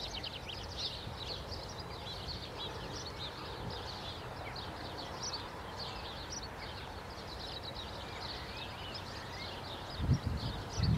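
Small birds chirping and singing in a dense, continuous chorus over a low steady rumble. Two low thumps come near the end.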